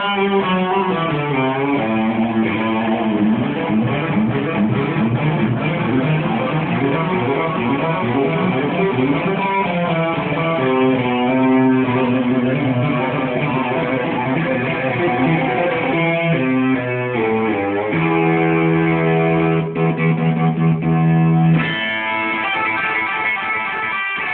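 Electric guitar: a Gibson Murphy Lab 1959 Les Paul with PAF humbuckers played lead, in quick runs of single notes. About eighteen seconds in, one note is held for several seconds, then the playing changes again.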